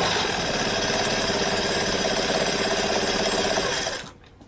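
125 cc scooter engine started and running with the CVT cover off, the variator, drive belt and clutch bell spinning in the open; a check run after refitting the transmission to confirm everything is seated and the belt is tensioned. The engine is switched off and stops suddenly about four seconds in.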